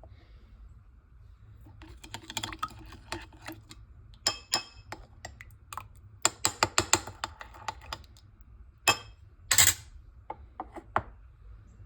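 Irregular light clicks and clinks of kitchen utensils against dishes, some in quick runs, with one louder clink near the end.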